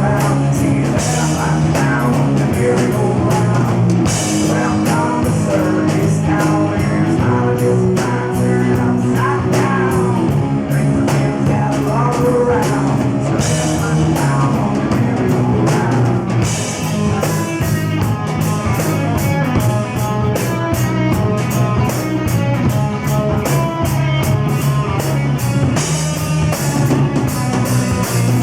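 A live rock band playing: drum kit keeping a steady beat under guitar and bass.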